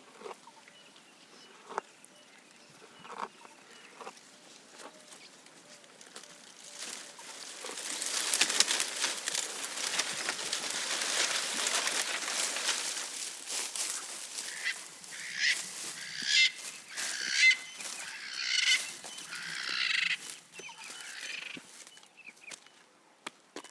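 Giraffe browsing: leafy branches rustling and crackling for several seconds as leaves are stripped, followed near the end by a string of short, harsh bird calls.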